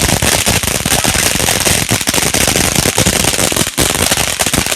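Consumer fireworks going off in a rapid, dense run of pops and crackles, like a string of firecrackers, with no break.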